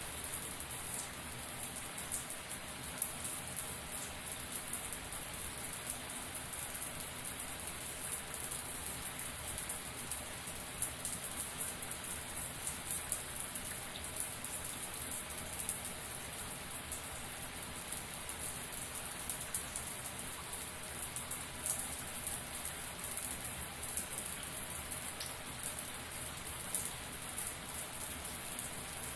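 Running shower: water spraying and splattering steadily onto a hard surface, a constant hiss full of small droplet splashes.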